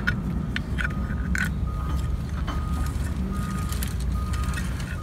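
A few sharp metal clicks and knocks as an SRL winch is fitted and pinned onto a steel davit arm, over a steady low rumble.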